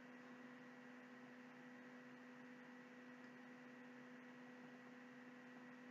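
Near silence: only a faint, steady electrical hum.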